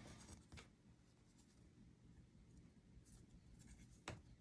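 Near silence with faint handling noise: soft rustles and light taps of a card box being handled, with a slightly sharper tap near the end.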